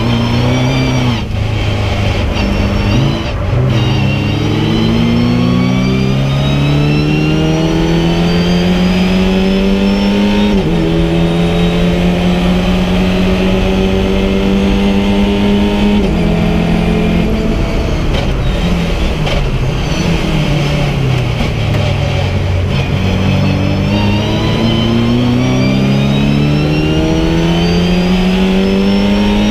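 VW Fun Cup race car's engine heard from inside the cockpit, running hard through the gears. The pitch climbs in long sweeps and drops at each upshift, about a second in, near three seconds and near eleven seconds, holds at high revs for a few seconds, then falls away as the car slows, before climbing again near the end.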